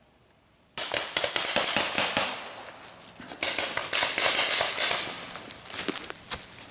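Footsteps crunching through dry fallen leaves, in uneven bursts of crackling that start suddenly about a second in.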